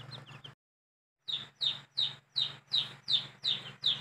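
Newly hatched chicks peeping: high, downward-sliding peeps that turn into a loud, regular run of about three a second, after the sound cuts out completely for under a second near the start. A steady low hum lies underneath.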